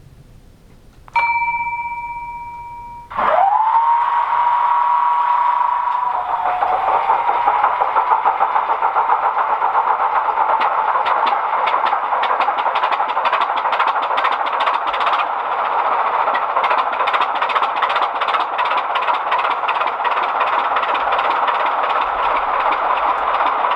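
Model Class 25 diesel locomotive's DCC sound decoder playing an engine start-up through the model's small speaker. A brief steady tone comes about a second in. The engine sound then winds up about three seconds in, drops to a lower idle around six seconds, and runs on steadily with a crackly texture.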